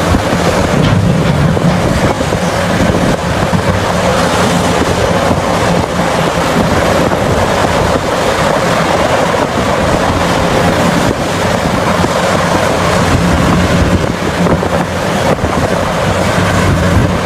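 Large hydraulic mining excavator's diesel engine running steadily at work, a constant low hum under a loud rushing machine noise.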